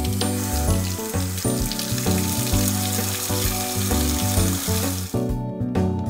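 Water spraying from a toy bathtub's faucet into the tub, a steady hiss that stops about five seconds in, over background music.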